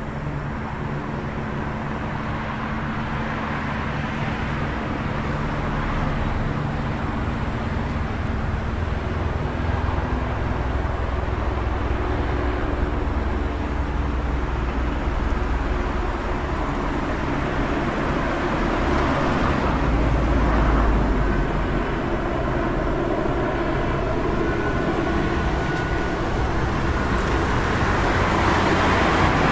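City street traffic ambience: a steady wash of passing vehicles' engines and tyre noise, with low engine hums that shift as vehicles come and go. The rumble swells briefly about two-thirds of the way through.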